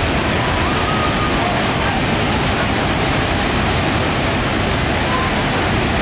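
A large waterfall plunging into its pool: a steady, loud rush of falling water.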